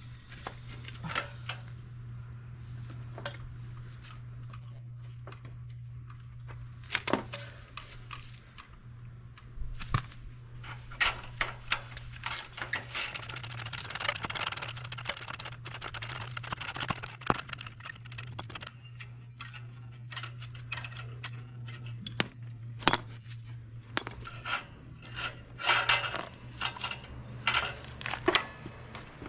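Metal tools and parts clinking and clattering in irregular sharp knocks, thickening into a busier stretch of rattling midway, over a steady low hum.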